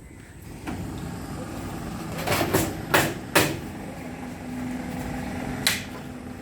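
Hammer driving wire nails into split-bamboo floor slats: five sharp blows, four in quick succession a little after two seconds in and one more near the end, over a low steady background rumble.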